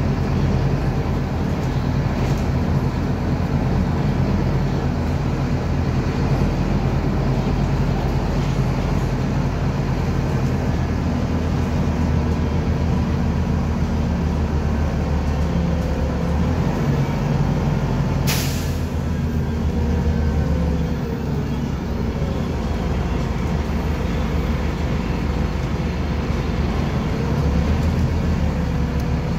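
Scania CN270UB city bus heard from inside the cabin while driving: its Scania DC9-17 five-cylinder diesel running with the ZF 6HP-592C automatic gearbox, engine note easing off around two-thirds through and picking up again near the end. About eighteen seconds in there is one short, sharp hiss of compressed air from the bus's air brake system.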